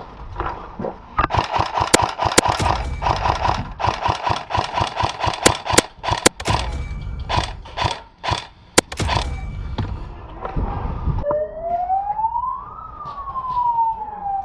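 Airsoft guns firing in rapid bursts and single shots for most of the first ten seconds. About eleven seconds in, a siren starts, rising in pitch for about a second and a half and then slowly falling.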